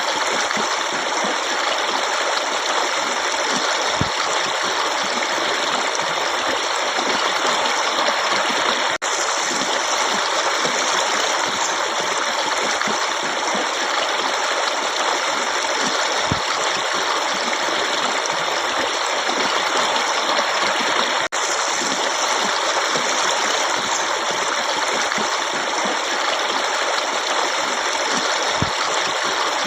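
Steady rushing flow of a stream's running water, an even, unbroken wash of sound. It cuts out for an instant twice.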